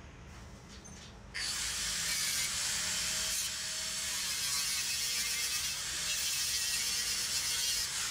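A loud, steady hiss starts suddenly about a second and a half in and stops suddenly near the end.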